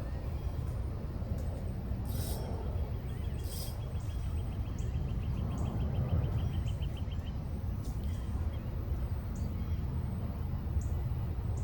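Outdoor ambience: a steady low rumble with faint, scattered bird chirps, and a run of rapid, even ticks in the middle lasting about four seconds.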